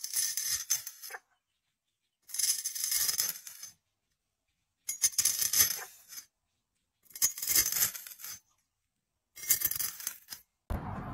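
Apple snail egg clutch crunching and crackling as a metal blade presses down and crushes it, in five separate bursts about two seconds apart with silence between.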